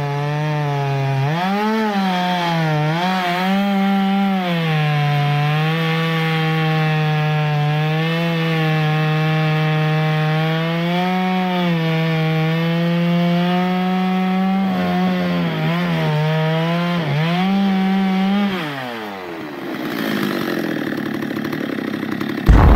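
Stihl 023 two-stroke chainsaw at full throttle, sawing through a thick log. Its pitch sags and recovers several times as the bar loads in the cut, then falls away about 18 seconds in as the throttle is released. A sudden loud rush of noise starts right at the end.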